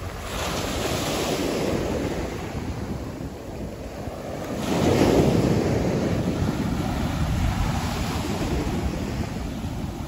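Small waves breaking at the shoreline and washing up the sand, with two surges, the stronger one about halfway through. Wind rumbles on the microphone underneath.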